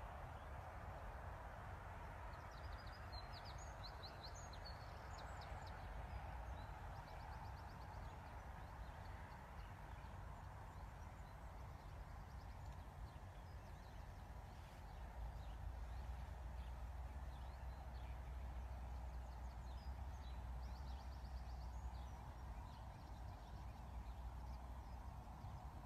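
Faint outdoor ambience: a steady hiss and low rumble, with small birds chirping in short quick trills a few times. The rumble grows a little louder about halfway through.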